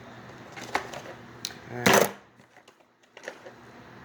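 A few light, sharp clicks and taps from small parts and tools being handled.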